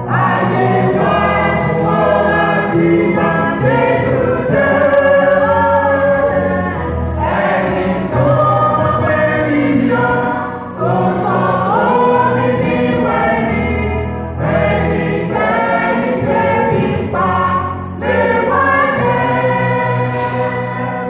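Church choir singing a gospel hymn together, in sustained phrases a few seconds long with short breaths between them.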